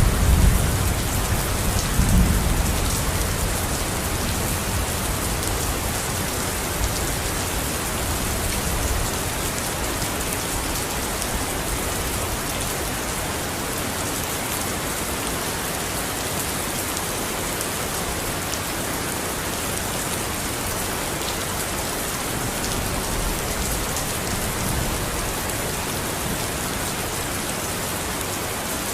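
Steady rain falling in an even hiss, with a low rumble of thunder dying away in the first few seconds.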